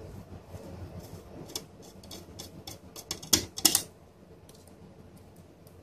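A run of small clicks and taps from handling the switch's metal case and circuit board. They fall between about one and a half and four seconds in, and the loudest group comes just past the middle.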